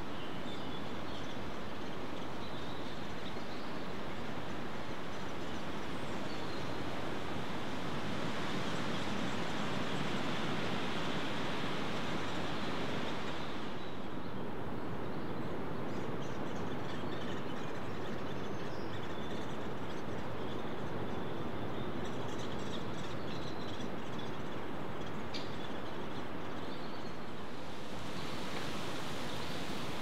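Steady rushing outdoor background noise, with faint high-pitched bird calls in the second half.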